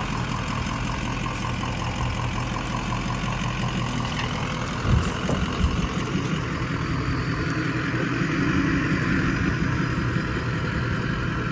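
Ford F-250 Powerstroke turbo-diesel V8 truck running at low, steady engine speed, crawling over rough trail. There are a couple of short knocks about five seconds in.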